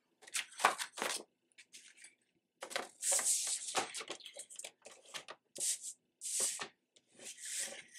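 A sheet of paper handled on a sliding paper trimmer: irregular rustles and swishes as the paper is slid, lifted and laid back down, with the trimmer's blade drawn along its rail to cut it.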